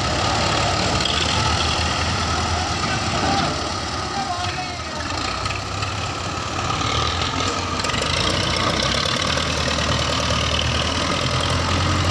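Diesel tractor engines running steadily at idle, a continuous low hum.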